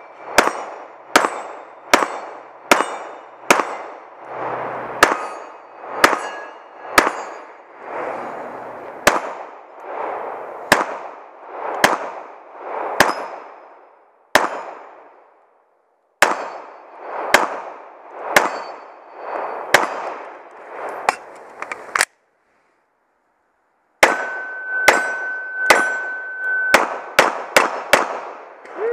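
Semi-automatic pistol fired in a long string of shots, roughly one every half-second to second, each with an echoing tail. Some hits clang on steel targets, and near the end one plate keeps ringing for about two seconds. The shooting pauses briefly around the middle, and the sound drops out completely for about two seconds two-thirds of the way through.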